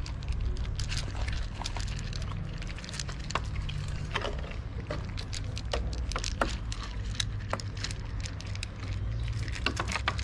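Several cats chewing dry kibble from plastic trays: a run of irregular sharp crunches and clicks over a steady low rumble.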